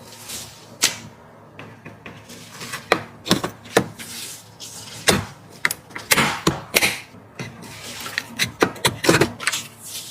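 A string of irregular sharp clicks, taps and knocks of computer hardware being handled and fitted during a PC build, busiest and loudest from about three seconds in.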